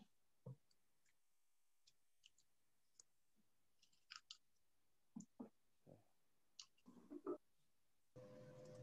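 Near silence broken by faint scattered clicks and small taps. Near the end a steady hum with a held tone comes in.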